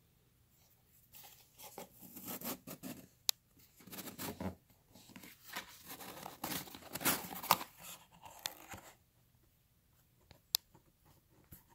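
A small cardboard box being opened by hand: the flaps rubbing, scraping and tearing in irregular bursts for several seconds, with a few sharp clicks.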